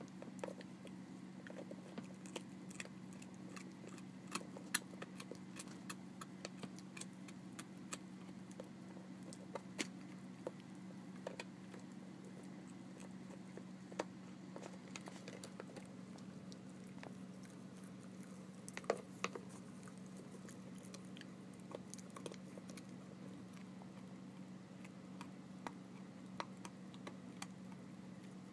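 A puppy gnawing a rawhide chew: faint, irregular clicks and crunches of teeth on rawhide, over a steady low hum.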